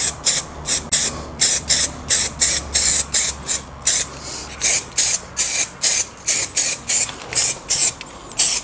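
Aerosol spray-paint can sprayed in short, rapid bursts, about three hisses a second.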